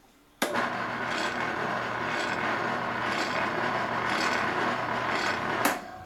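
Delta benchtop spindle sander switched on and running, its motor noise with a low hum and a surge about once a second. It is switched off near the end and winds down.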